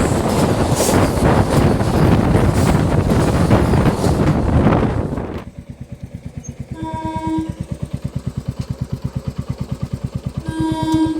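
A train rushing past close by, a loud steady rush of noise that cuts off abruptly about five seconds in. Then comes a fast steady throbbing of about ten pulses a second, with two short blasts of a train horn, the second near the end.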